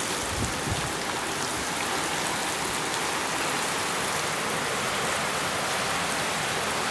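Heavy rain pouring steadily onto standing floodwater: an even, unbroken hiss of drops splashing into the water.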